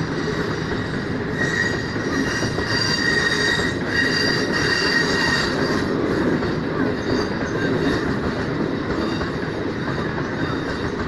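Green Line express passenger coaches rolling past on a curved track with a steady rumble. Their wheels squeal in thin, high, steady tones, loudest from a second or two in until about halfway through.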